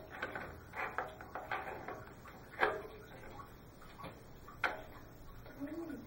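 Hands working parts of a mill-drill head: scattered light clicks and rattles, with two sharper knocks about two and a half seconds in and again two seconds later.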